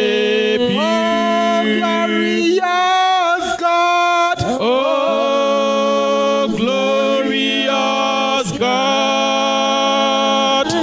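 Slow worship singing by a woman and men on microphones: long held notes in phrases a second or two long, over a steady low tone.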